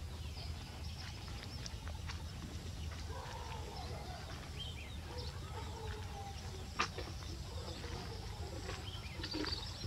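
Outdoor background: a steady low rumble with faint distant animal calls and a few sharp clicks, the loudest about seven seconds in.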